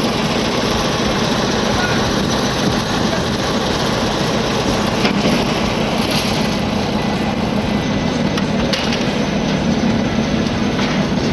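A heavy vehicle's engine running steadily under a loud, even rushing noise, with a few faint clicks.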